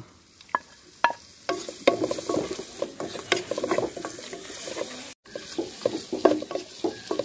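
Chopped tomatoes dropping into a hot non-stick pan of fried onion masala, then a spatula stirring and scraping them through the pan in quick, irregular strokes while the mixture sizzles. The sound cuts out for an instant a little after five seconds in.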